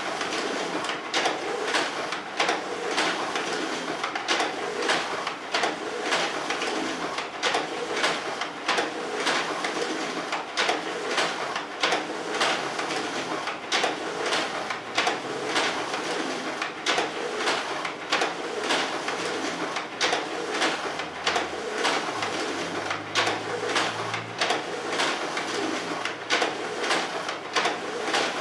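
Automatic document feeders of two office copiers scanning a stack of double-sided originals: a steady whirr with a rapid, uneven run of clicks as sheets are pulled through one after another.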